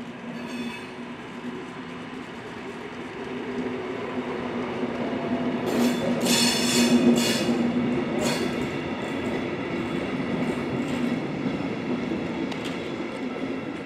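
Diesel-hydraulic locomotive 112 364 (Deutsche Reichsbahn class 112, a V 100) passing with a train, its steady engine hum growing louder to a peak about halfway through. A few wheel clacks over the rail joints come at the loudest point.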